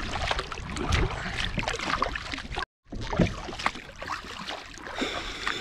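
Kayak paddle strokes dipping and splashing in the water, with water dripping off the blade. The sound cuts out completely for a moment about halfway through.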